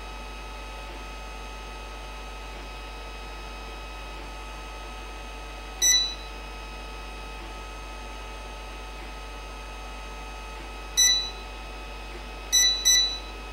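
Fan controller board's buzzer giving short high beeps as it takes infrared remote button presses for a speed change: once about six seconds in, again near eleven seconds, then two quick beeps near the end. A steady hum runs underneath.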